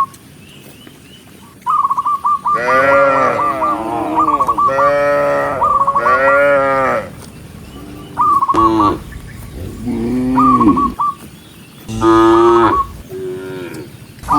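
Cattle mooing: several long, loud calls that overlap almost without a break for a few seconds, then three or four separate moos with short pauses between them.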